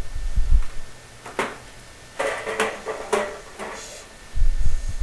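Thin sheet-metal flue pipe being handled and fitted together: a few sharp light metallic clanks and rattles in the middle, with dull low thumps at the start and near the end.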